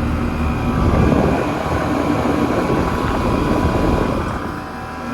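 Old central air conditioner condenser unit running: its fan rushing over a steady compressor hum, swelling about a second in and easing a little near the end.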